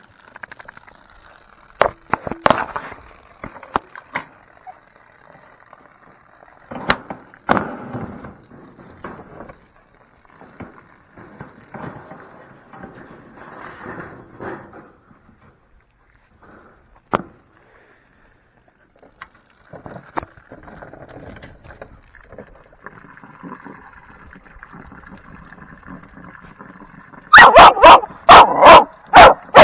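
Young American Bully dogs barking: a quick run of loud barks near the end. Before that there are scattered knocks and short scuffles, over the faint steady hiss of a garden hose spraying water into the pen.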